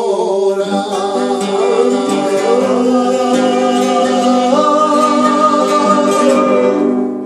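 Male singing over two strummed nylon-string classical guitars, closing the song on a long held note that stops near the end.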